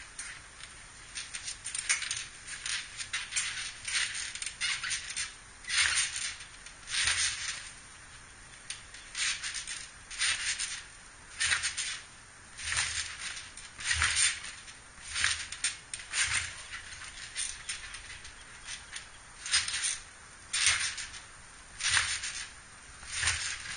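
Trampoline springs squeaking with a soft thump from the mat at each bounce, in a rhythm of roughly one bounce a second with a couple of short lulls.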